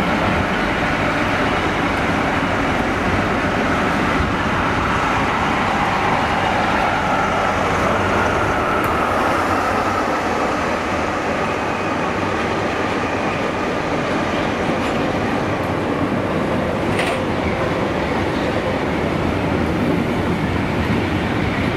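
Diesel locomotive hauling a train of coaches past along the platform: steady engine rumble and wheel-on-rail noise, with a faint tone that glides a little in pitch as the locomotive passes. A single sharp click comes near the end.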